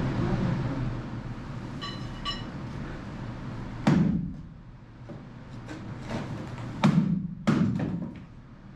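Heavy thuds of a hammer striking a rotten wooden shaft-alley stringer in a boat's hold: one about four seconds in and two close together near the end, each dying away briefly. A light metallic clink comes a couple of seconds before the first blow.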